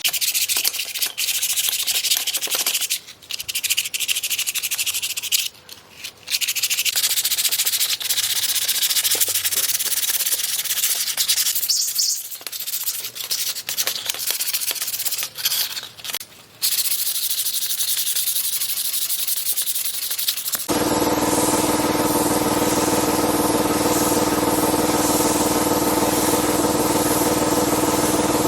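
Sanding: a steady hiss of abrasive rubbing, broken by short pauses. About two-thirds of the way through it cuts off abruptly and a machine starts a steady hum with several fixed tones.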